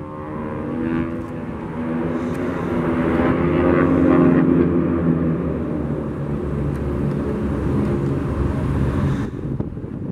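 Engines of a formation of propeller-driven aerobatic planes droning overhead, swelling to their loudest about four seconds in and then easing off. A hiss over it drops away abruptly near the end.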